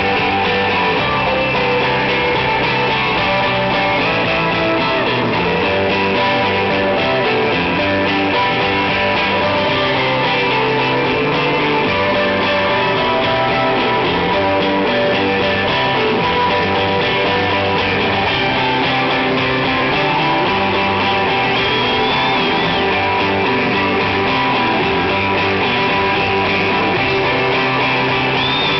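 Live rock band playing, with strummed electric guitar to the fore; loud and steady throughout.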